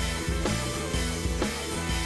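Background music with a steady beat of about two beats a second over a stepping bass line.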